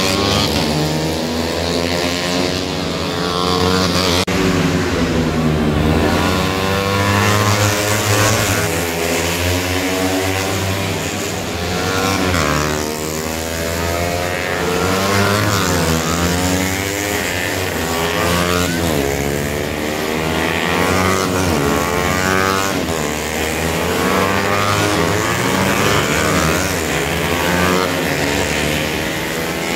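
Several small racing motorcycles' engines revving, their pitch rising and falling over and over as they take a corner and pass.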